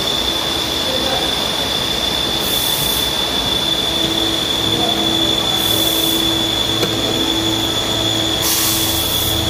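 Automatic bottle filling and labeling line running: a steady high-pitched machine whine over a constant mechanical drone, with short bursts of hiss about every three seconds and a lower hum joining about four seconds in.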